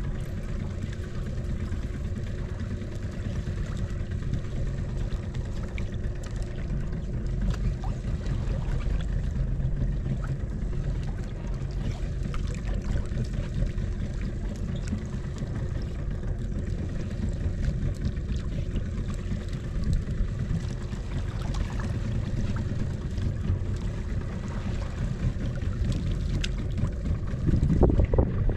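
A small fishing boat's motor running steadily: a low rumble with a faint constant hum. It swells louder briefly near the end.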